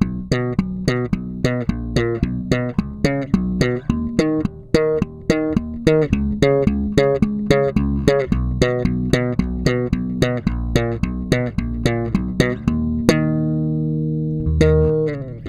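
Warwick Pro Series five-string electric bass played fingerstyle: a fast, even run of plucked notes, about four a second. About thirteen seconds in, the run stops on a note left to ring, and one more note is struck near the end.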